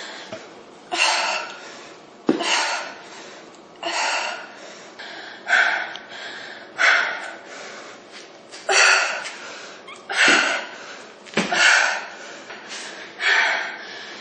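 A woman breathing hard under exertion: forceful, gasping exhales repeating about every second and a half, about nine in all, each starting sharply and trailing off, in rhythm with her exercise reps.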